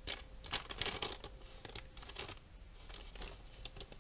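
Paper wrapping of an airline cutlery pack crinkling and tearing as it is handled and pulled open. The crackling is densest in the first two seconds, then thins to lighter crackles.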